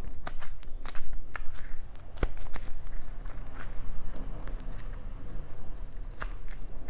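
Close-miked ASMR handling sounds: a string of irregular sharp clicks and crackles, with a few louder snaps about one, two and four seconds in.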